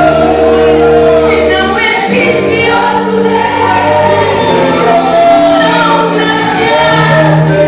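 Gospel choir singing with instrumental accompaniment: long held notes with vibrato over a steady bass line.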